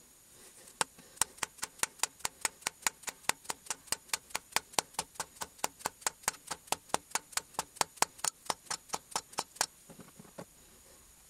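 Rapid, even clicking, about five clicks a second, from the tool cutter grinder spindle assembly as it is turned by hand. The clicking starts about a second in and stops a little before the end.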